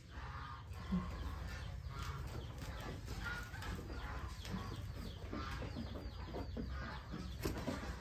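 Ambience of a goat pen: short animal calls and goats moving about, over a steady low rumble.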